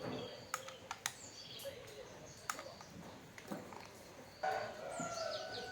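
A few sharp, separate clicks and taps, with birds calling and chirping from about four and a half seconds in.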